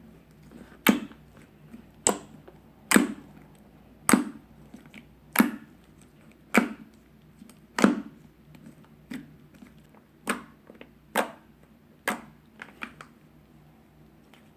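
Slime being folded and pressed by hand, giving sharp popping clicks about once a second as air pockets burst.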